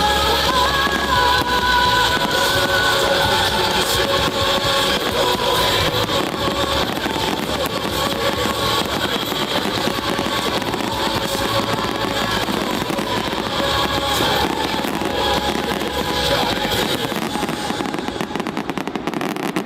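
New Year's fireworks crackling and banging in quick succession, with music playing over them that fades out near the end.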